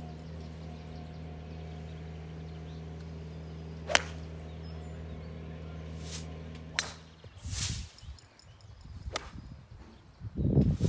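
Golf irons striking balls on a practice range: sharp clicks of ball contact about four seconds in (the loudest), again around six and seven seconds, and once more near nine seconds, with a brief swish of a club swing in between. A steady motor hum runs underneath for the first seven seconds and then stops abruptly.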